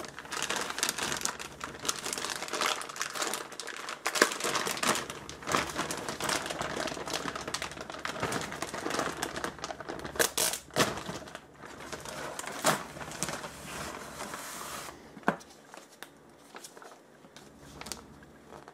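Thin clear plastic bag crinkling and crackling as it is handled, a dense run of small crackles. About 15 seconds in it thins to a few soft rustles and clicks.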